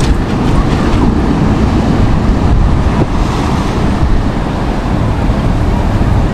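Ocean surf washing on a beach, with wind buffeting the microphone; a steady, loud rush with no break.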